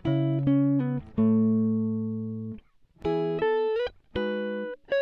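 Background music: a melody of plucked notes that start sharply and ring out, in short phrases with brief pauses between them.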